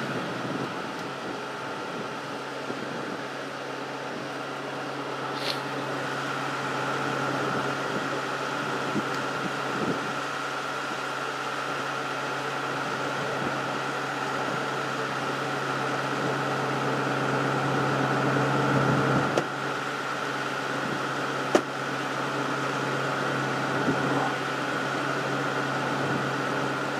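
Steady hum of an idling vehicle engine close by, holding one pitch. It grows slightly louder and then drops off suddenly about 19 seconds in. A faint click comes about five seconds in and a short sharp tap about 21 seconds in.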